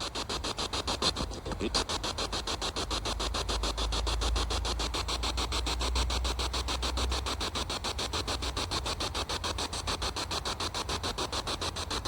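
Spirit box sweeping through radio stations: choppy static pulsing rapidly and evenly, about eight times a second.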